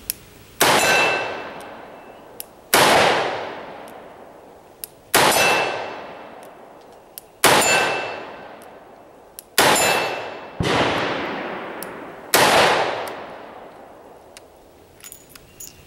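.357 Magnum rounds fired one after another from a Colt revolver, about two seconds apart. Each sharp crack is followed a moment later by the steel gong target ringing out and fading.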